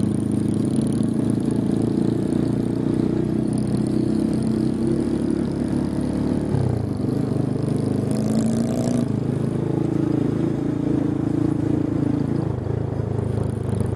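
Motorcycle engine running steadily while riding at road speed, with a shift in its note about halfway through.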